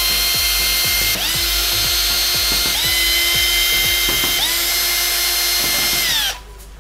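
Cordless drill with a screwdriver bit backing screws out of an angle grinder's gear housing. Its motor whine rises anew about four times, as the trigger is squeezed again, then stops suddenly shortly before the end.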